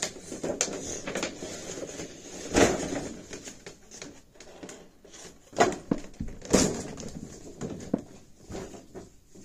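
Cardboard box and clear plastic packaging tray being handled as a giant Funko Pop is pulled out of its box: rustling and scraping, with a few sharp knocks, the loudest about two and a half seconds in and more a few seconds later.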